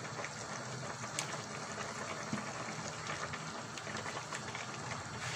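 A pot of macaroni soup simmering while a wooden spoon stirs it, the liquid sloshing steadily, with a few faint knocks of the spoon against the aluminium pot.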